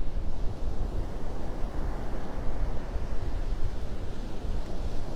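Wind buffeting the microphone with a heavy, uneven rumble, over the steady wash of surf breaking on the beach.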